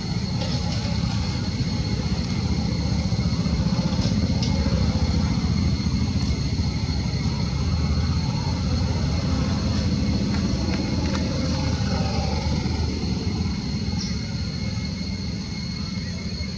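Steady low rumble of outdoor background noise, with a thin steady high-pitched tone above it and a few faint clicks, easing off slightly near the end.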